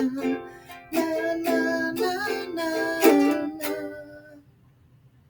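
Ukulele strumming the closing chords of a song, several strokes over the first few seconds; the last chord rings and dies away about four seconds in.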